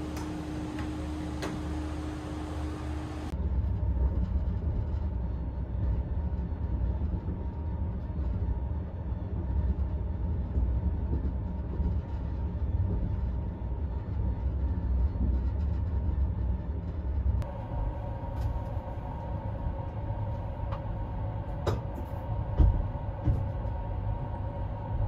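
Moving SRT CNR sleeper carriage, heard from inside the cabin: a continuous low rumble of the running train, with a few sharp knocks near the end. For about the first three seconds there is only a steady ventilation hum, before the rumble starts.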